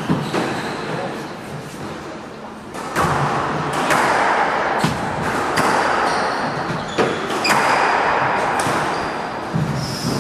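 Squash rally: the ball struck by rackets and hitting the court walls, sharp echoing smacks about once a second, starting about three seconds in.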